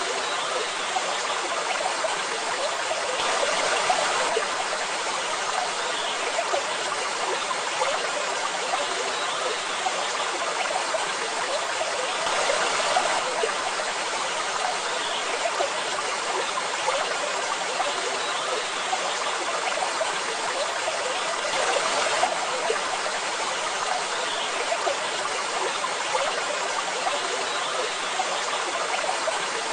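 Waterfall rushing in a steady, even wash of falling and splashing water, swelling slightly now and then.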